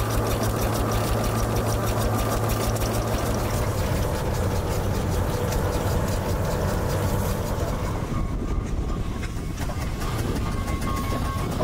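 Engines running steadily: a low hum with fast, even ticking over it. The sound shifts in tone about four and again about eight seconds in.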